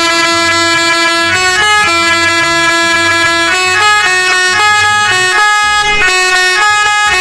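Telolet bus horn playing a melody of held notes that jump in pitch every half second or so, without a pause.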